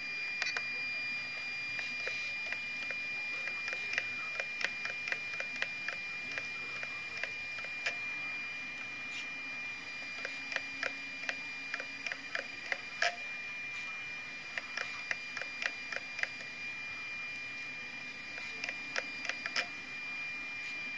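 Powered JX 32 kg digital RC servo giving a steady high-pitched whine, with many short irregular clicks and ticks in clusters as it is worked from the RadioLink RC4GS transmitter and handled.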